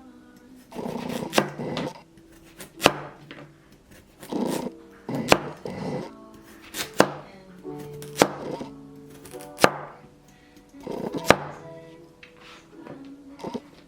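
Background music with steady notes, cut through by sharp knocks every second or so and a few short rustling noises.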